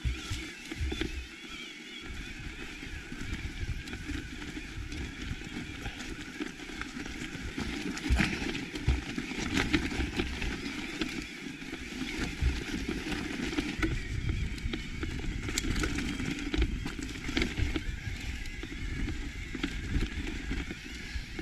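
Electric mountain bike riding over a rocky track: tyres crunching over loose stones, with scattered knocks and rattles from the bike and a steady low rumble.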